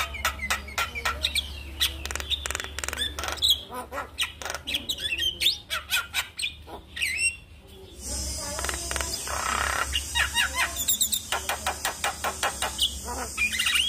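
Javan myna singing a fast, varied run of chattering clicks and whistled gliding notes. It breaks off briefly about halfway through and then resumes, with a steady hiss behind it.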